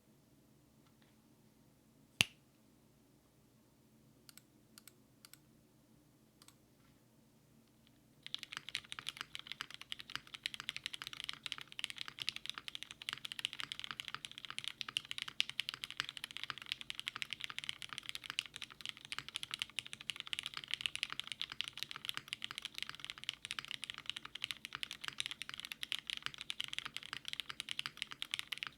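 Typing on a mechanical keyboard with lubed Cherry MX Black (Retooled) linear switches in an aluminium half-plate. A few single key clicks, one sharp one about two seconds in, then continuous fast typing from about eight seconds in.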